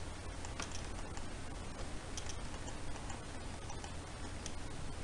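Faint, irregularly spaced computer mouse clicks over a steady background hiss and low hum.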